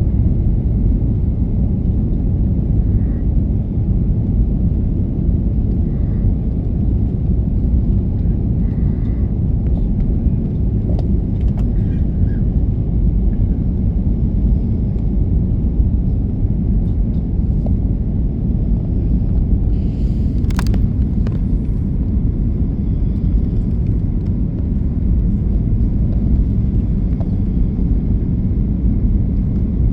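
Airbus A330-200 cabin noise from a window seat behind the wing: the steady low rumble of the engines and airflow in flight. A single brief click sounds about two-thirds of the way through.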